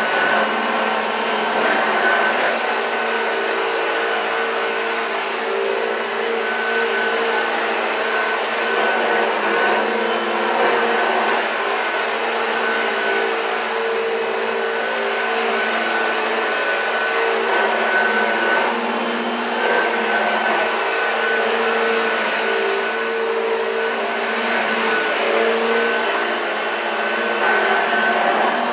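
1986 Hoover Junior U1206 upright vacuum cleaner running steadily, a motor hum with a thin high whine over the rush of air, its level wavering slightly as it is worked.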